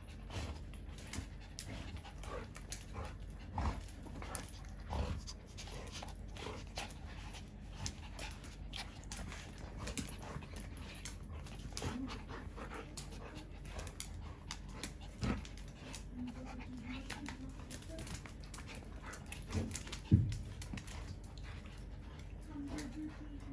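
Two dogs, one large and black and one small and long-haired, play-fighting over a plush toy ball on a tiled floor. There is panting, many quick scuffs and clicks of paws, and a few short whines, with one sharp, louder thump about twenty seconds in.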